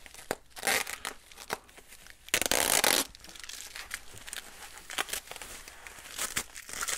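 Bubble wrap crinkling and rustling as it is handled and unwrapped, with a loud rip of packing tape being pulled off about two and a half seconds in, lasting about half a second.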